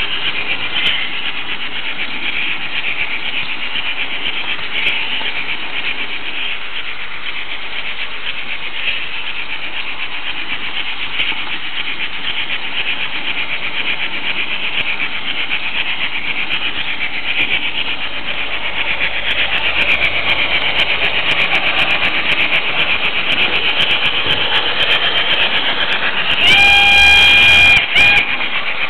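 Running noise of an H0 Märklin model train, a steady whirring rattle of wheels and motor on the track with fine rapid clicks, echoing inside a tunnel. Near the end the locomotive's sound module gives one steady pitched signal note, louder than the running noise, for about a second and a half.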